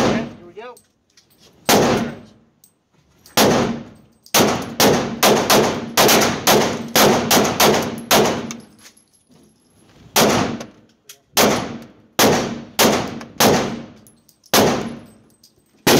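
About twenty pistol shots echoing in an indoor range. A few single shots a second or two apart give way to a fast run of about ten shots some four seconds in, then more shots in ones and twos.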